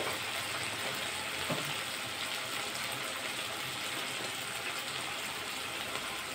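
Mustard oil sizzling steadily in a kadai around freshly added Kashmiri chilli powder and whole spices.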